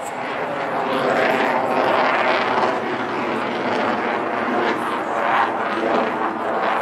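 MiG-21 LanceR's turbojet engine heard from the ground as the fighter climbs and turns overhead: a loud, steady rushing jet noise that swells and eases slightly.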